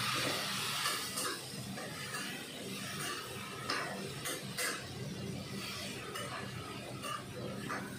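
A metal spatula stirring and scraping food in a wok on a gas stove, with a faint sizzle and scattered short scrapes and clicks over a steady low hum.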